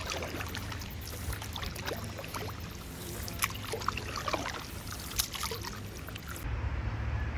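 Stand-up paddleboard paddle strokes in calm water: the blade dipping in and pulling through, with small splashes and water trickling and dripping off the blade, over a low steady rumble.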